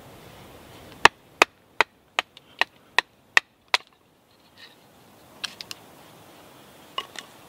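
Wooden mallet batoning a knife down through a branch to split it lengthwise down to a halfway saw cut: about nine sharp knocks, a little more than two a second, then a few lighter clicks near the end.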